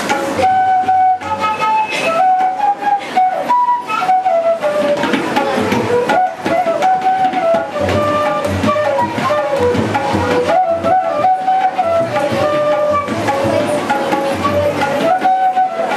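Indian bamboo flute playing a melody that steps up and down between held notes, accompanied on tabla, whose deep bass-drum strokes recur beneath it.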